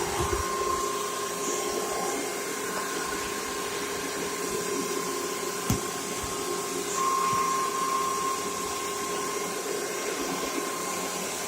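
Vacuum cleaner running steadily while vacuuming a floor, a constant motor whine over the rush of air, with a single knock about halfway through.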